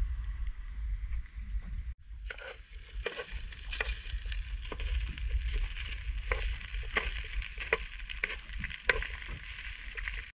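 Wind rumble on the microphone, then from about two seconds in chips sizzling as they fry in oil in a pan, with metal tongs clicking and scraping against the pan as they turn them.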